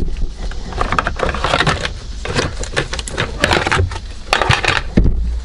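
Hands working a car's plastic steering-column shroud loose, with an irregular run of clicks, plastic rattles and screw clinks, and a heavier knock about five seconds in.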